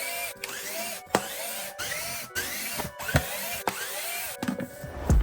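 Power drill running in short repeated bursts, each a quick rising whine as the motor spins up, about two a second, as screws are backed out to open the air filter box.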